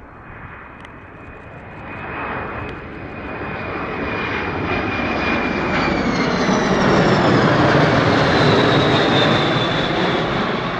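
Boeing E-4B, a four-engined Boeing 747-200B, passing low overhead: its four General Electric CF6 turbofans grow steadily louder, with a high-pitched fan whine that slides down in pitch as the aircraft goes by.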